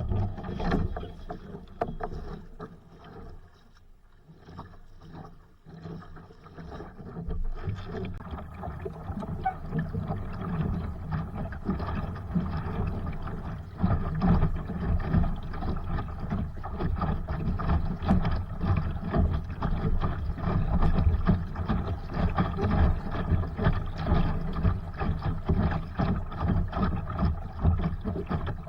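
Water rushing and splashing along the hull of a Sunfish sailboat under sail. It is quieter and patchy at first, then denser and louder from about eight seconds in.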